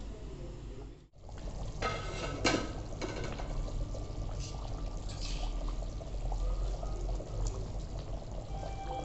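Thick rista gravy bubbling and plopping as it simmers in an aluminium kadai, with a short clatter of the spoon about two seconds in.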